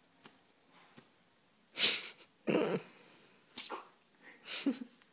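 A baby's short breathy snorts and sniffs, about four of them.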